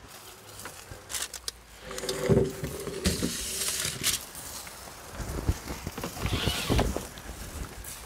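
Handling noises: scattered clicks, knocks and rustling as gear is set out on a folding camp table. A short pitched creak-like sound about two seconds in is the loudest moment, and there is a burst of cloth rustling with soft thumps near the end.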